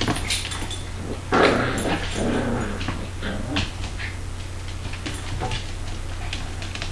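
A Labrador retriever and a Border Collie puppy play-wrestling: play growls and yips, loudest about one and a half seconds in, with scattered light clicks.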